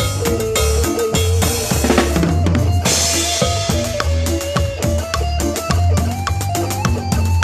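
Live band playing: a drum kit keeps a steady beat with kick, snare and rimshots over a sustained bass line, with a pitched melody line above. A cymbal crash comes about three seconds in.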